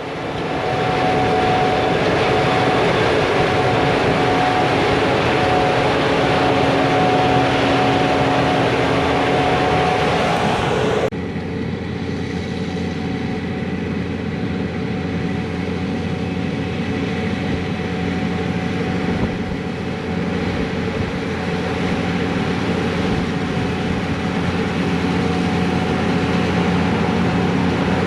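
Diesel engines of wheat-harvest machinery running steadily, with a constant engine hum. About eleven seconds in the sound switches abruptly to a different, slightly quieter and lower engine drone.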